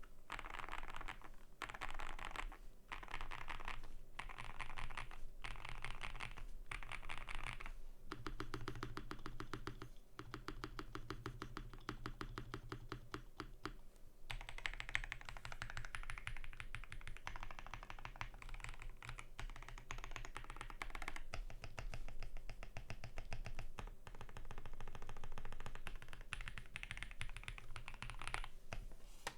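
Typing on a QK75N custom mechanical keyboard with lubed Vertex V1 switches, PBT keycaps and a polycarbonate plate: bursts of fast keystrokes. About a third of the way in comes a run of rapid, evenly spaced presses with a deeper tone, lasting several seconds, before normal typing resumes.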